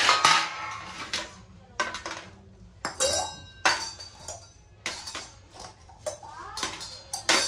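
Brass kitchen utensils clinking and knocking against each other as they are handled: an irregular string of about a dozen sharp metallic clinks, several leaving a brief ringing tone.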